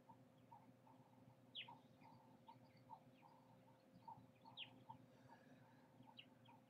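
Near silence: a faint steady hum with a soft, even ticking pulse about three times a second and a couple of brief high chirps.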